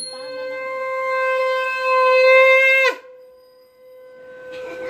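Conch shell (shankh) blown during an aarti: one long steady note that swells for about three seconds, then drops in pitch and breaks off. A second blast at the same pitch starts about a second later, quiet at first and growing louder.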